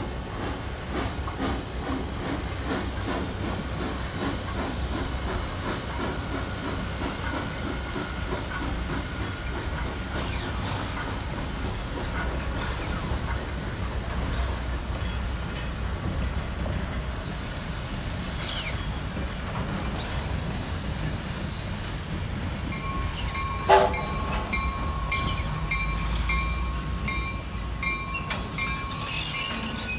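Clover Valley Lumber Co. 2-6-6-2T Mallet steam locomotive No. 4 working past with a rhythmic exhaust, then its freight cars rolling by with a clickety-clack of wheels over rail joints. A single sharp knock comes about three-quarters of the way through, and a thin steady squeal runs through the last few seconds.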